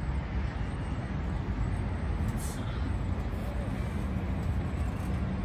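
Steady low outdoor rumble of background noise, with faint distant voices.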